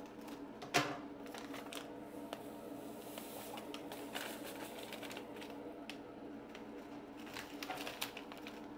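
A pouch of powder crinkling, tapped and shaken as it is emptied, with scattered clicks and a sharp click about a second in. A steady hum from the fume hood fan runs underneath.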